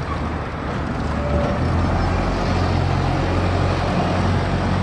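Single-deck bus engine running with a steady low drone as the bus drives past and turns away.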